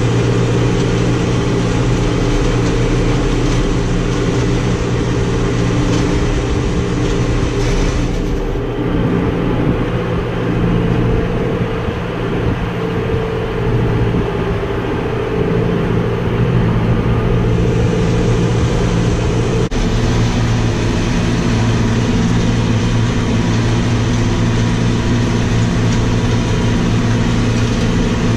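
John Deere tractor's diesel engine running steadily under load, heard from inside the cab while it pulls a PTO-driven rotary hay tedder. For about ten seconds in the middle the sound is duller and the engine note wavers.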